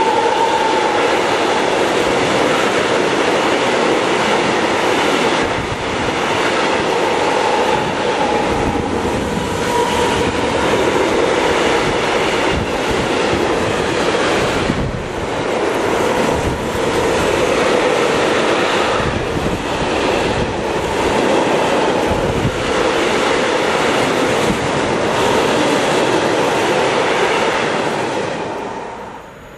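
Long freight train of tank wagons rolling past close by: a steady rumble and rattle of wheels on rail, with repeated clicks as the wheels cross rail joints. The sound falls away near the end.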